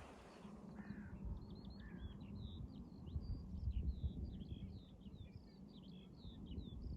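A songbird singing a rapid, continuous run of short chirps and trills, over a low rumble.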